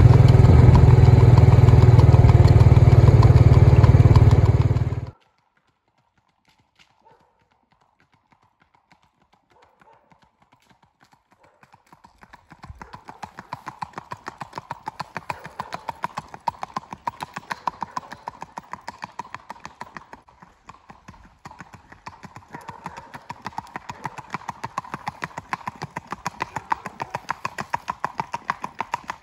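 A vehicle engine runs steadily and cuts off abruptly about five seconds in. After a few seconds of near silence, the hooves of a gaited horse set in on a paved path: a quick, even clip-clop that runs on to the end.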